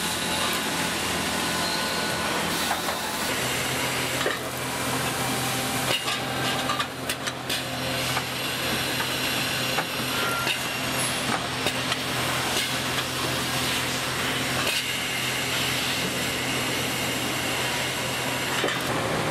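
Factory machinery: water jets spraying a cast engine crankcase in an industrial parts washer, then an automated machining line running with a steady low hum and scattered metal knocks.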